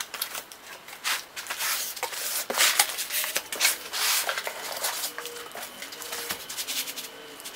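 Rustling and scraping of paper, cardboard and white foam packing as a CNC router kit is unpacked, with irregular short rubs and knocks throughout and a faint squeak in the second half.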